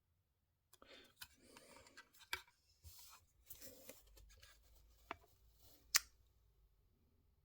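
Hands handling a small diecast model car and its plastic display case: light rustling with several sharp plastic clicks, the loudest about six seconds in.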